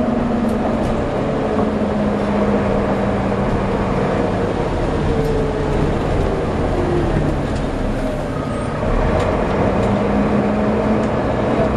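Volvo B7TL double-decker bus under way, its six-cylinder diesel engine and drivetrain giving off the high whine that enthusiasts call a "hoover" sound. The whine drops in pitch near the start, falls further midway as the bus slows, and climbs again near the end as it pulls away, over a steady engine rumble.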